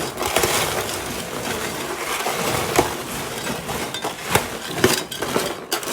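Freshly made caramel-coated popcorn, still warm and soft, being stirred and turned over continuously: a steady rustling, light crunching with scattered sharp clicks.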